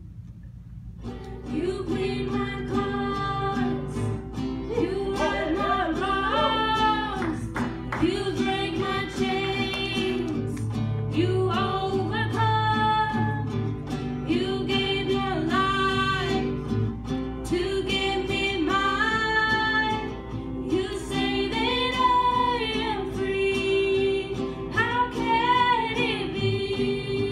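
Girls singing a worship song together with acoustic guitar accompaniment; the music comes in about a second in.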